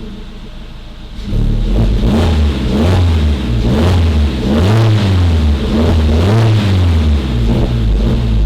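2021 Suzuki Jimny JB74's 1.5-litre four-cylinder petrol engine through a Forge Motorsport cat-back exhaust. It runs lower for about the first second, then is revved up and let back down several times in a row.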